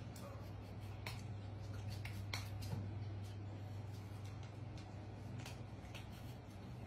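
Faint rustling and a few soft ticks from a hand rubbing a kitten's fur against the floor, over a steady low hum.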